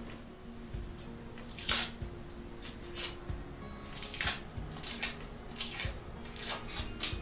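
Kitchen knife peeling and cutting a whole onion held in the hand: a series of short, crisp slicing scrapes at irregular intervals, about eight or nine of them, the loudest about one and a half seconds in.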